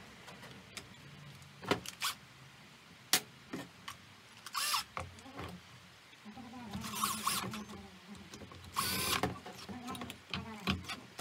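Workshop noises from work on a chainsaw: a few sharp knocks and clicks, then several short whirring bursts of a small motor over a low hum.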